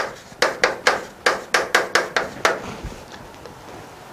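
Chalk writing on a blackboard: a quick run of sharp taps as the chalk strikes the board, about four a second, thinning out to a few faint ones after about two and a half seconds.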